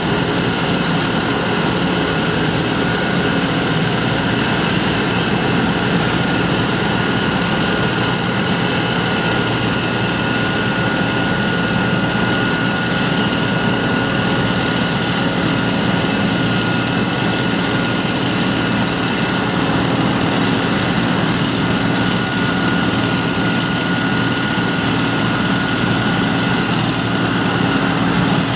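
John Deere 9580 WTS combine harvester running steadily under load, its engine and threshing machinery making a constant loud noise with a thin steady whine above it.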